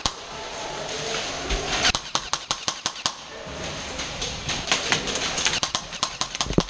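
Airsoft rifle fire: two bursts of rapid sharp shots, about two seconds in and again from about four and a half seconds in, with BBs cracking against the plywood and metal close by.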